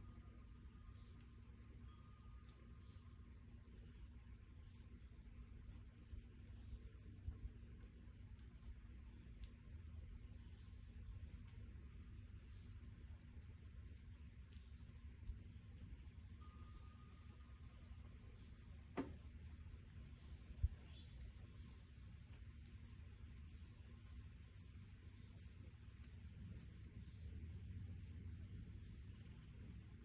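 A steady, high-pitched trilling chorus of insects, with short sharp chirps standing out about once a second.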